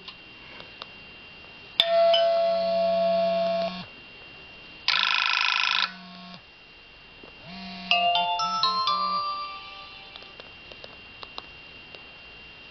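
Nokia 1208 ringtones and alert tones, one after another: a held chord lasting about two seconds, a dense one-second tone, then a quick run of several short notes.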